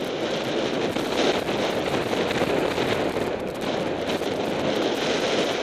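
Cyclocross bike ridden fast over bumpy grass, rattling and clattering steadily with many sharp clicks, heard through a camera mounted on the bike or rider.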